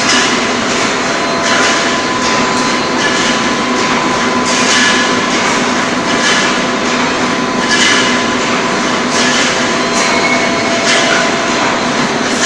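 Automatic roll mesh wire welding machine (DP-FP-2500B) running: a continuous mechanical clatter over a steady hum, with a louder surge about every second and a half as each welding and mesh-pulling cycle comes round.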